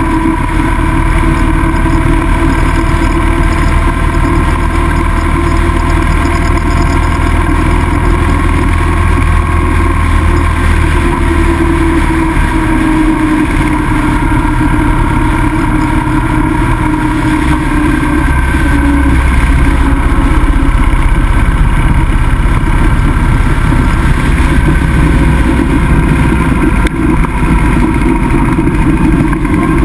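Motorcycle engine running at road speed under a deep rumble of wind and road noise, its note drifting gently up and down with throttle.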